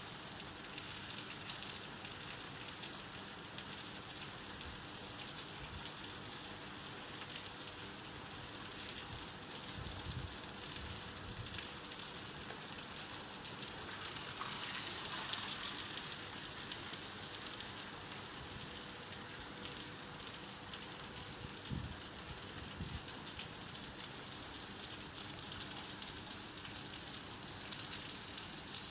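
Steady rain falling, a dense even hiss of drops that swells briefly about halfway through, with a few soft low thuds.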